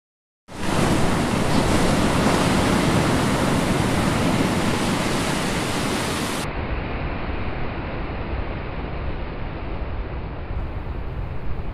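A steady rushing noise like surf starts about half a second in. It turns abruptly duller about six and a half seconds in, losing its highest part, and carries on.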